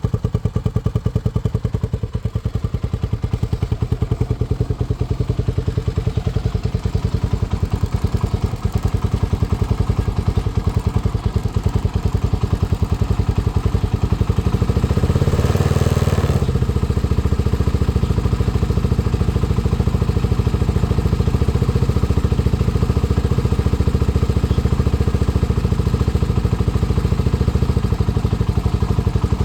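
1987 Honda CBX125F's single-cylinder RFVC DOHC four-stroke engine idling with an even, steady beat, given a short blip of throttle about halfway through before settling back to idle.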